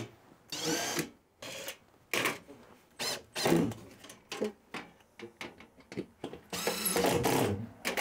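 Cordless power driver running in a string of short bursts, each spinning up and winding down, with the longest burst near the end. It is driving screws through an air conditioner's mounting plate into plasterboard anchors.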